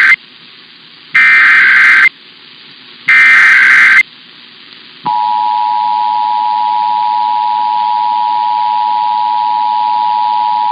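Emergency Alert System alert header: the end of one SAME digital data burst, then two more, each about a second long with a second's gap between, followed about five seconds in by the EAS attention signal, a steady two-tone 853/960 Hz tone that holds.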